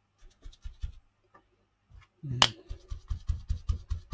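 Foam dauber dabbing and rubbing in a small plastic pot of blue paint and its lid, with soft taps and scrapes of plastic. There is one sharp plastic click about two and a half seconds in, then a quick run of soft taps, about six a second.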